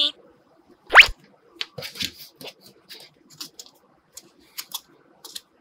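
A quick rising whistle-like swoop, a sound effect, about a second in. After it come soft, scattered clicks and crackles of fingers pressing play dough into a plastic star cutter and peeling it away.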